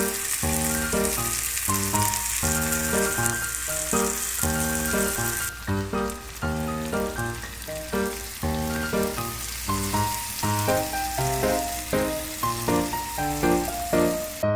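Flounder sizzling as it pan-fries for meunière. The sizzle is strongest for about the first five seconds, then quieter, and stops near the end. Background music plays throughout.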